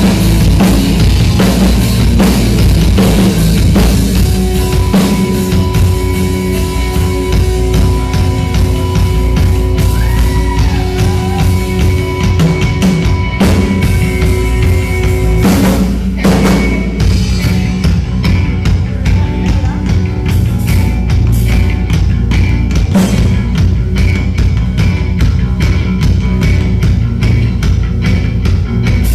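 Loud live rock music with a drum kit, bass drum and rimshots driving a steady beat under a heavy bass, with held notes through the first half.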